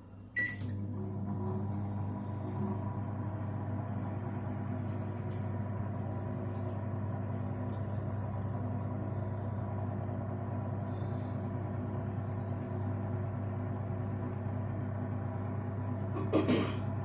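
Microwave oven running with a steady hum. It starts with a click about half a second in, and a brief louder sound comes near the end.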